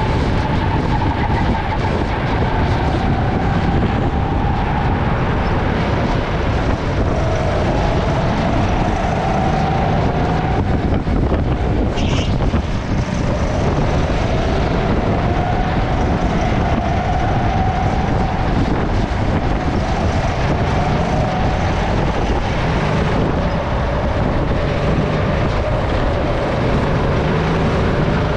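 SODI RT10 rental go-kart's engine running flat out on board, with heavy wind noise on the microphone. Its note drops as the kart slows for corners and climbs again as it accelerates out, over and over.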